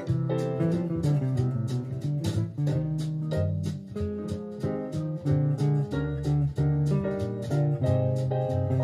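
Hollow-body archtop electric guitar played along with a computer-generated backing track, both heard through speakers.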